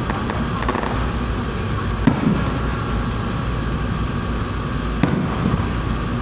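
Aerial fireworks bursting: a few sharp bangs, the clearest about two and five seconds in, over a steady low rumble of further explosions.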